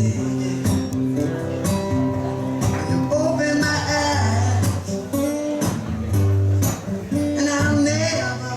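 Live band music led by strummed guitar over a steady low bass line.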